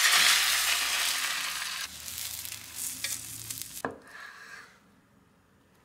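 Beaten egg poured into a hot, oiled rectangular tamagoyaki pan, sizzling loudly at first and dying down after about two seconds. About four seconds in a knife knocks once on a wooden cutting board as it cuts through the rolled omelette.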